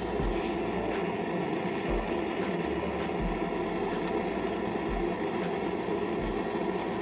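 Hose-fed gas torch burning steadily against a copper water line, heating the old solder joint until the copper changes colour.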